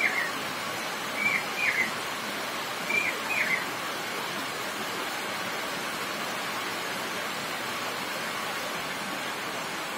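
Heavy rain falling steadily, an even hiss throughout. A bird calls short paired chirps three times in the first four seconds.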